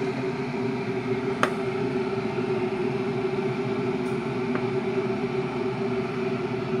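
Small 6 W 220 V AC reversible gear motor with a 12.5:1 reduction running steadily, turning a cast-iron hand coffee grinder through a shaft coupling: a steady hum. A sharp click about a second and a half in, and a fainter one around four seconds.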